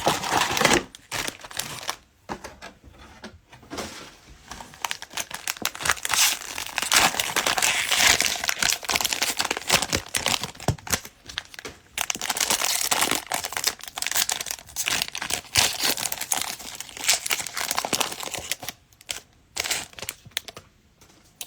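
Cellophane wrapper of a trading-card cello pack being torn open and crinkled by hand, in irregular crackling bursts. There is a quieter stretch from about two to five seconds in.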